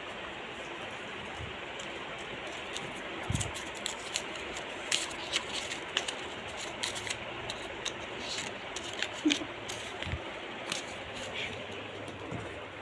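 Scattered light clicks and rustles of small things being handled, with a couple of soft thumps, over a steady hiss.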